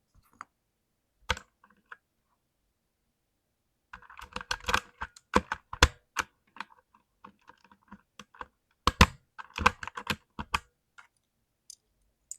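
Mechanical keyboard keys clicking as they are typed on: a few single keystrokes, then two quick flurries of clicks a few seconds apart.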